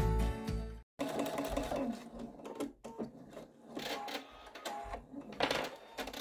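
Background music cuts off about a second in. Then a computerized sewing machine stitches in short, uneven runs, topstitching a binding through quilted fabric.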